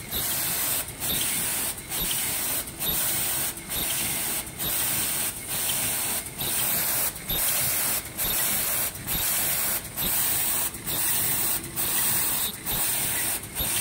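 High-speed automatic KN95 mask machine running: a steady hissing mechanical noise broken by a short regular drop a little more than once a second, the beat of its cycle at its rated 70–80 masks a minute.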